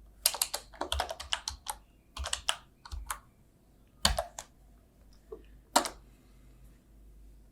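Typing on a keyboard: quick runs of key clicks for the first three seconds, another short run at about four seconds, then a single click.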